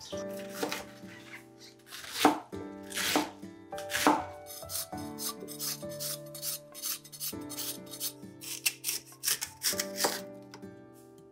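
Kitchen knife strokes against a wooden cutting board as burdock root is shaved and lotus root is sliced: three louder strokes about a second apart, then a quicker run of cuts near the end, over background music.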